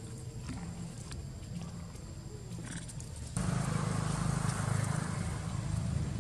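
Young macaque screaming: a loud, noisy cry that starts suddenly about three seconds in and keeps going.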